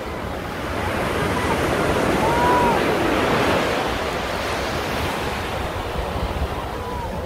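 Ocean surf breaking and washing up onto a sandy beach: a steady rush of water that swells about a second in and eases off again after about four seconds.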